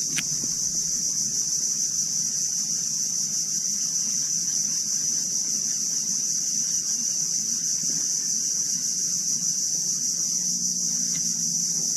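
Steady, high-pitched drone of insects, unbroken and even in level.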